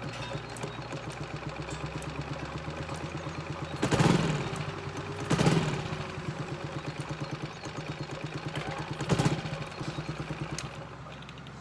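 Outboard motor idling, just woken from winter storage, with a steady rapid putter. There are three brief louder bursts, about four, five and a half and nine seconds in, and the putter quietens near the end.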